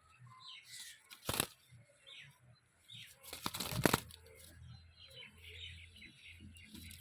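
Parrot flapping its wings in short noisy bursts: once about a second in, then a louder flurry around three to four seconds in.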